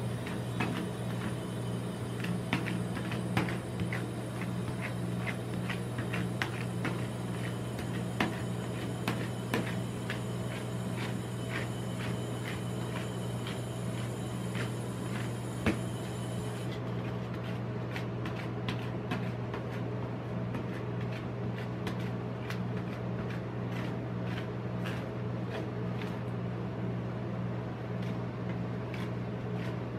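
Metal spatulas tapping, scraping and spreading ice cream across a steel cold plate: a run of irregular clicks and scrapes of blade on metal over a steady low hum.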